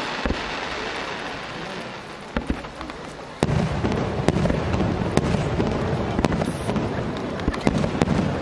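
Fireworks display: a fading hiss with a few single thumps from shells, then about three and a half seconds in, a sudden dense volley of bangs and crackling from many shells bursting together.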